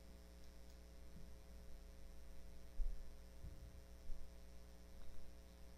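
Faint steady electrical hum, with a few soft low bumps around the middle.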